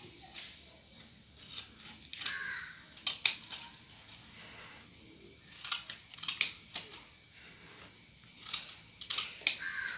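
Scissors cutting slits into a folded sheet of colour paper: a string of short, sharp snips at uneven intervals.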